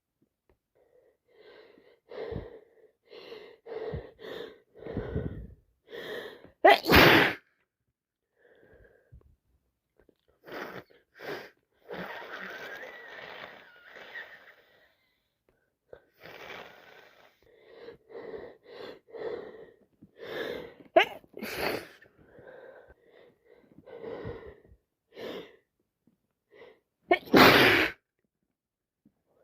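A person with a heavy head cold sneezing several times, with short gasping and wheezy breaths building up between the sneezes. The loudest sneezes come about seven seconds in and near the end.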